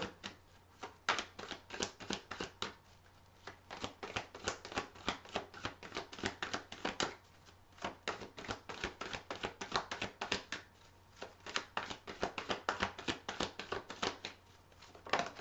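A deck of tarot cards shuffled by hand: a quick, irregular patter of soft card clicks and slaps, in runs broken by a few short pauses.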